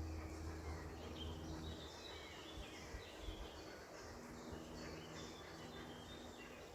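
Wild songbirds chirping and calling in quick, overlapping short notes, over a faint steady low hum.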